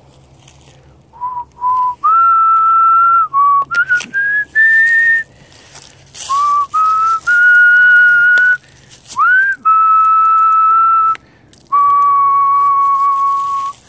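A person whistling a slow tune by mouth: a string of clear notes at changing pitches, several held for a second or more, with a quick slide up about two-thirds of the way in.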